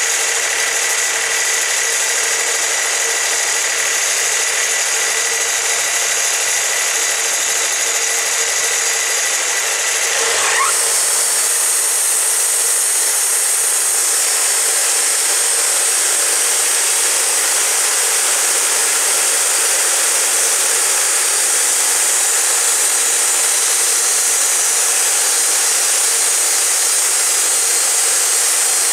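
Wood-Mizer LT40 portable band sawmill running; about ten seconds in its engine speeds up with a rising pitch, and a steady, louder sawing noise follows as the band blade cuts along a cottonwood log.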